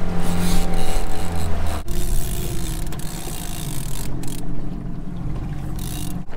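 Small outboard motor pushing an aluminium dinghy along at trolling speed, steady, with water wash and wind. About two seconds in it drops to a lower, quieter running sound.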